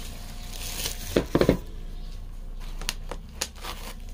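Packaging being handled as a bubble-wrapped part is lifted out of a foam packing insert. Plastic rustles, a quick cluster of deep thumps comes about a second in and is the loudest part, and a few sharp clicks follow.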